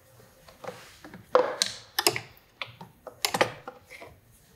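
Hand work on plastic cable ties: a series of sharp clicks and snaps in two clusters, about a second and a half in and again after three seconds.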